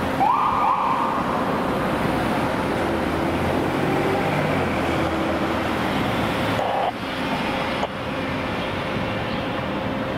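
An emergency vehicle's siren gives a short whoop just after the start, rising quickly in pitch, holding briefly and dropping away, over steady city traffic noise.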